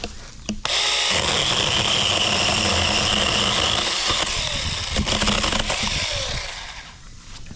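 Sharklogger cordless battery mini chainsaw starting up with a click and running for about six seconds with a steady high whine, then winding down.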